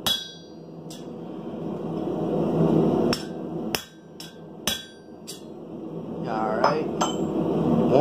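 Hammer striking a chisel held on hot steel on an anvil, about six sharp ringing blows at uneven intervals over the first five seconds or so. A steady rushing noise runs underneath.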